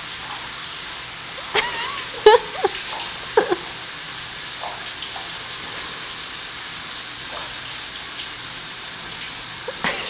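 Overhead spa shower spraying steadily onto a person. A man makes a few short vocal exclamations with sliding pitch between about one and a half and three and a half seconds in.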